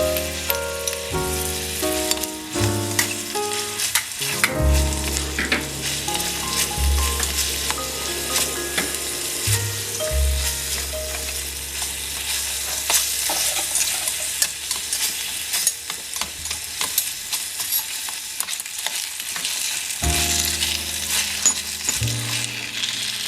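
Food sizzling in a miniature frying pan, with frequent clicks and scrapes of stirring. Background music with deep bass notes plays underneath, fuller at the start and near the end.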